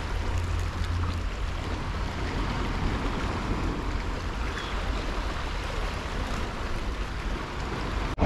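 Small sea waves washing over the rocks at the foot of a seawall: a steady hiss of surf, with a low rumble in about the first second.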